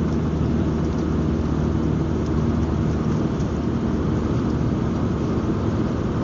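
Steady engine hum and road noise inside the cabin of a moving van.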